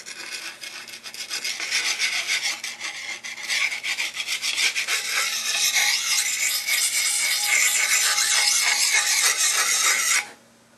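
Lansky Puck sharpening stone rasping against the steel edge of a kukri in quick, continuous scraping strokes. It is quieter for the first couple of seconds, then louder and steady, and it stops abruptly near the end.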